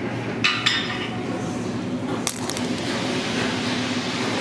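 Busy restaurant room noise with sharp clinks of tableware: two close together about half a second in, and another a little after two seconds.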